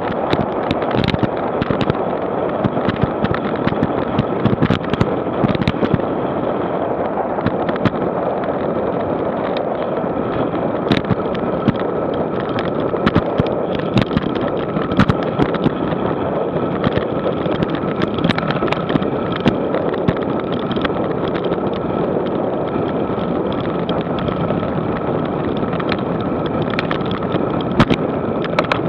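Wind rushing over an action camera's microphone on a moving ride, a steady noisy rush broken throughout by many sharp knocks and pops from buffeting and road bumps.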